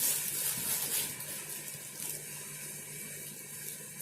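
Golden gift-wrapping paper crinkling and rustling as a present is being unwrapped. The crackle is loudest in the first second, then carries on more softly.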